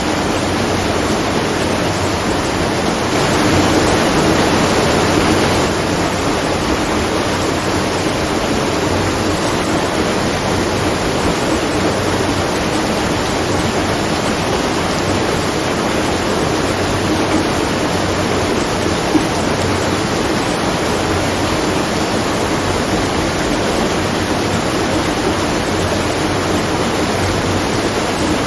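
Water rushing steadily at a watermill, a constant full rush that swells slightly for a couple of seconds a few seconds in.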